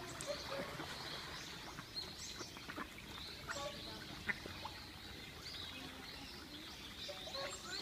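Mallard ducks quacking while feeding on a pond, with scattered short clicks and many brief, high bird chirps.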